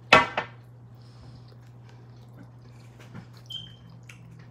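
A short, loud voice sound from one of the diners at the start, then faint clicks and small taps of eating at the table over a steady low hum.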